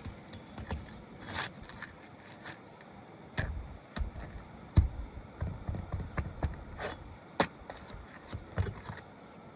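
Flat pry bar working under asphalt roof shingles, breaking the seal strips and prying out roofing nails: irregular scrapes, clicks and knocks, the sharpest about five seconds in and again near seven and a half seconds.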